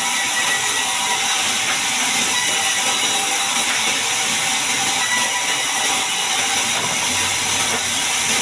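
Sawmill bandsaw running through a large mahogany log: a steady, loud hiss of the blade cutting, with a faint steady whine.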